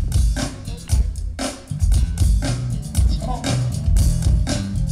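Live jazz band playing: a drum kit keeps a steady beat over a heavy bass line, with electric guitar and keyboards, and a melodic line comes in about three seconds in.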